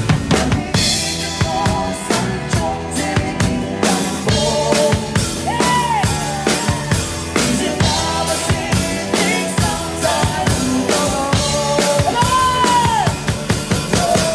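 Live pop band playing, with the drum kit up close and prominent: steady kick, snare and cymbal hits over keyboards, and a woman's voice singing a line that slides up and down a couple of times.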